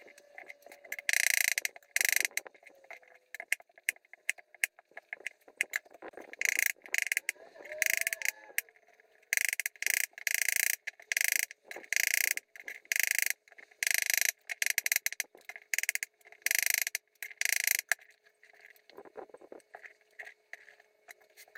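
Kitchen knife slicing mushrooms on a cutting board, in a run of short strokes about one or two a second with brief pauses.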